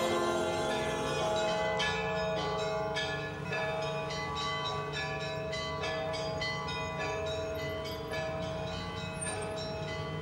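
Church bells ringing: a quick, uneven run of strikes that ring on and overlap, slowly fading.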